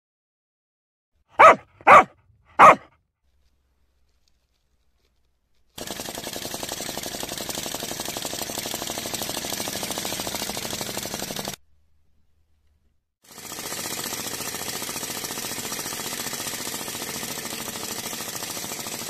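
Three short, loud bark-like sounds about a second and a half in, then a vacuum flame-licker hot air engine running with a fast, even clatter from its piston and sliding valve. The clatter stops briefly around twelve seconds in and starts again.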